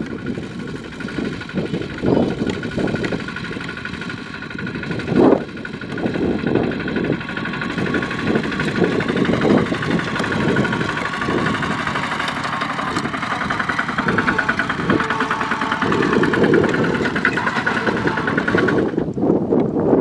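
Kubota RT140 two-wheel walking tractor's single-cylinder diesel engine running steadily under load as it hauls a laden straw trailer, with gusty wind noise on the microphone. The engine sound cuts off suddenly just before the end.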